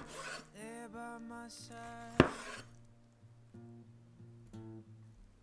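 A kitchen knife slicing through a rolled omelette and knocking on a wooden cutting board, one sharp knock about two seconds in, over background music with singing.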